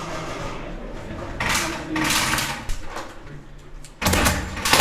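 Airsoft rifle firing a rapid burst of shots starting about four seconds in, loud and sudden, after a few softer bursts of noise in the middle.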